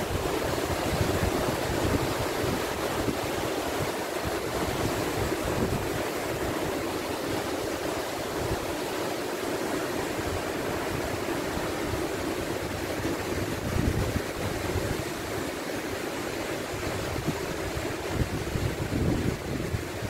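Steady rush of a river cascading white over rock slabs, with wind rumbling on the microphone.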